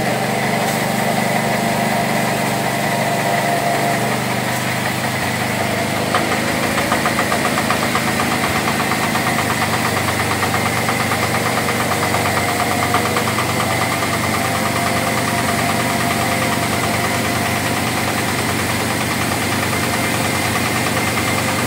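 Small horizontal stationary diesel engine running steadily under load, driving a belt-driven grinding mill as fried chillies and peanuts are fed through it. From about six seconds in, a fast, even knock comes through more clearly.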